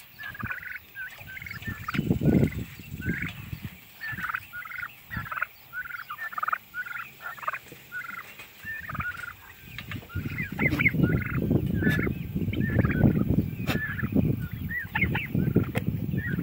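Young Narragansett turkeys calling, a steady stream of short high calls one after another. Under them runs a low rumble that grows louder from about ten seconds in.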